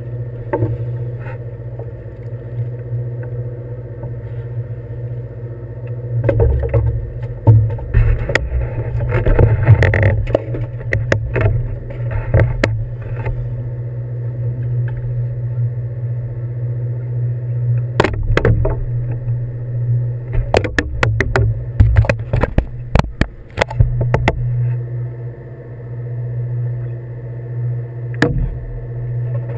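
Fishing boat's engine running with a steady low hum. Two stretches of low rumbling buffeting, like wind on the microphone, and scattered sharp knocks and clatter come over it, loudest in the middle.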